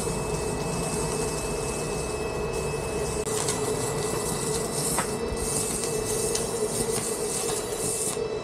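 Electric arc welding on steel tubing: the arc crackles and sizzles steadily over a steady hum, and stops shortly before the end.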